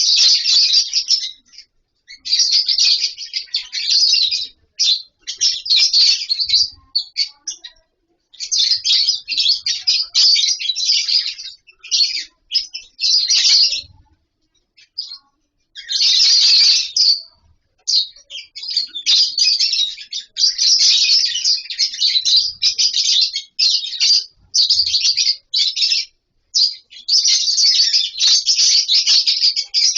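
A colony of lovebirds chattering: rapid, shrill chirps in bouts of one to a few seconds, broken by short pauses, the longest of them about halfway through.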